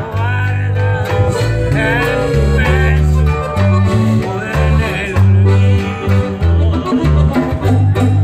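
A live duet of piano accordion and strummed guitar, the accordion's bass notes pulsing underneath, with a man singing over them.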